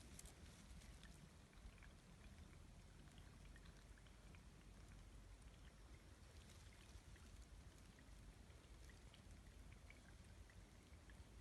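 Faint water sounds: scattered small drips and splashes over a steady low rumble.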